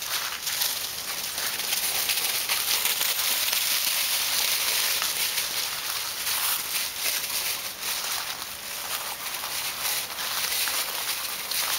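Dry fallen leaves crunching and rustling steadily under two dogs running and play-wrestling.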